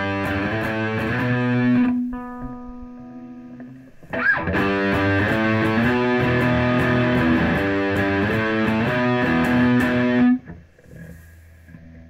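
Electric guitar played through a Boss Katana Artist MK2 combo amp on the lead channel at full gain, sounding distorted. The playing is dense for about two seconds, then one held note rings out and fades, then more playing resumes and is cut off sharply about ten seconds in.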